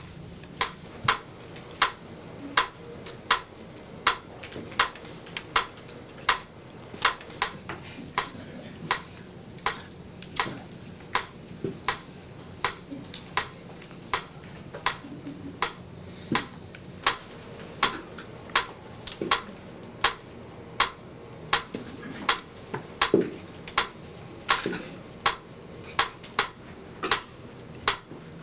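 Small clear plastic pyramid metronome ticking steadily, about four ticks every three seconds.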